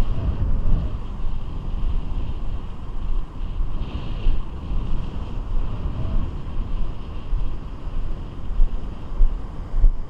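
Strong wind of about 20 knots buffeting the microphone in uneven gusts, over the steady wash of surf on the beach.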